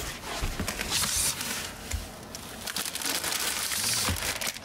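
Rustling and crinkling of plastic-bagged items being dug out of a cardboard file box, in two bouts with a few light knocks.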